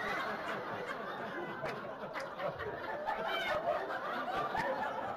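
A room full of people laughing together: an audience's laughter with many voices at once, rising and falling.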